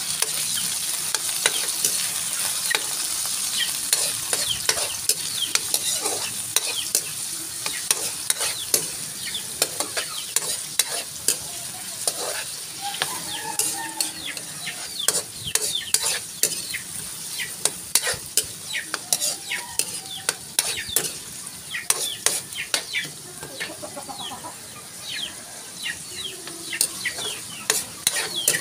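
Onion, garlic and tomato sizzling in hot oil in an aluminium wok, while a metal spatula stirs them, scraping and clicking against the pan many times.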